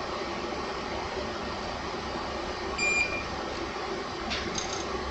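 Steady fan-like hum of electronics bench equipment while a component is soldered, with one short, high electronic beep just under three seconds in.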